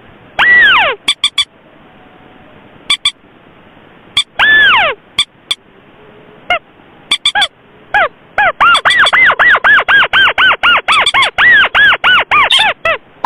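Recorded bird lure call for moorhens and crakes: two long calls that slur downward, then from about eight seconds a fast, loud run of short arched notes, about three a second, with sharp clicks between them.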